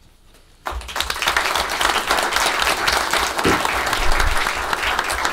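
Applause from a room of people clapping, starting suddenly less than a second in after a short silence and going on strongly.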